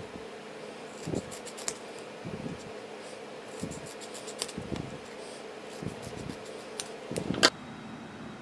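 Small scissors snipping through a printed sticker sheet in several short runs of crisp snips, with a sharp clack near the end.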